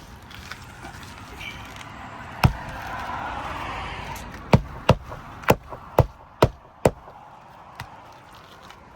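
Hammer driving a new roofing nail through asphalt shingles, securing a shingle course. There is one sharp strike, then about two seconds later a quick run of six strikes roughly half a second apart.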